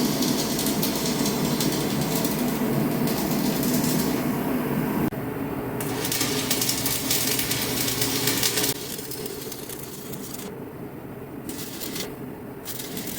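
Electric arc welding on a steel stove body: a steady crackling hiss that breaks briefly about five seconds in, then stops about two-thirds of the way through, leaving quieter short spells of crackle.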